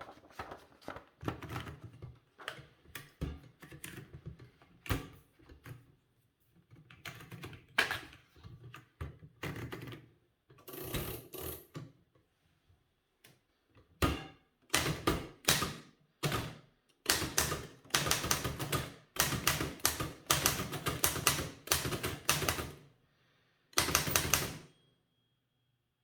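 Old manual typewriter being typed on, its type bars striking the platen in irregular runs of keystrokes. The strokes are sparse and softer at first, then come faster and louder from about halfway, and stop shortly before the end.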